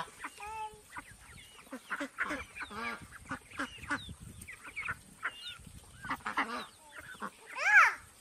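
Domestic white ducks quacking in a string of short calls, with one louder, longer call near the end.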